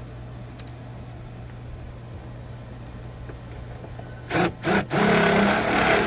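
Cordless power drill spinning up in two short trigger pulls, then running steadily for about a second, over a steady low hum.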